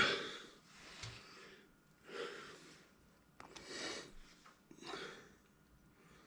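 A person breathing hard through the nose, a few short noisy exhales about a second or so apart, after a loud noise fades out right at the start.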